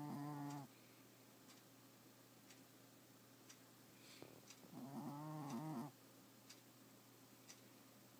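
A sleeping pet snoring loudly: two pitched, vibrating snores, one trailing off about half a second in and a second one about a second long near the middle. A faint clock ticks about once a second throughout.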